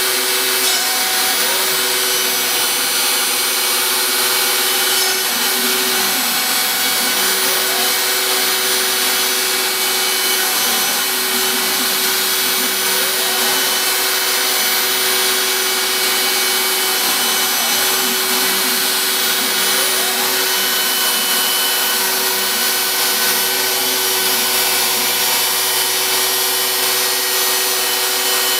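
Router spindle on a home-built CNC router running steadily while its bit cuts through MDF, with short rising and falling whines from the axis motors as the carriage changes speed.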